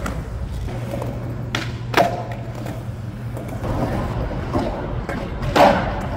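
Skateboard wheels rolling on concrete with a steady low rumble, broken by the board's hard clacks on the ground: a sharp one about two seconds in and a louder one near the end.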